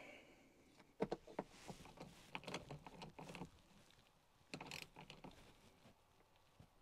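Socket ratchet turning a battery terminal nut on a cable lug: faint, irregular clicks and knocks in a few short clusters.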